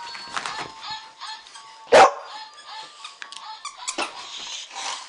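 A dog barks once, sharply, about two seconds in, over background music with steady held notes.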